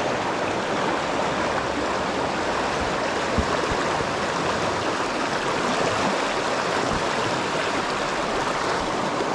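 Steady rush of river water tumbling over rocks and around boulders in a fast riffle, with a small low knock about three and a half seconds in.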